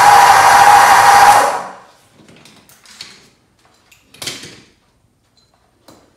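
Loud background music that fades out about a second and a half in, followed by a few faint clicks and brief scuffling noises of hands working on the engine.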